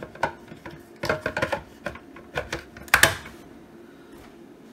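Plastic clicks and knocks as an M12 battery pack is pushed into the opened Milwaukee M12 radio's battery housing and the housing is handled, with the loudest knock about three seconds in.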